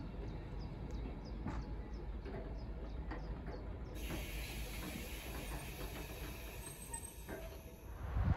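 Passenger coaches rolling slowly past, their wheels clicking and knocking over the track joints above a low rumble, the clicks coming irregularly in the first half and thinning out later.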